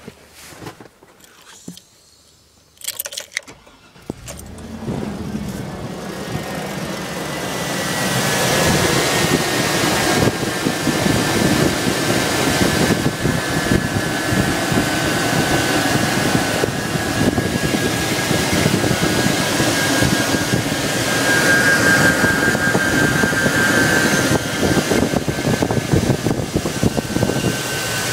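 A car engine is started with a brief crank about three seconds in, then runs steadily. It turns a bracket of four alternators on one very tight belt, and a steady high whine sits over the engine sound, which grows louder over the next few seconds.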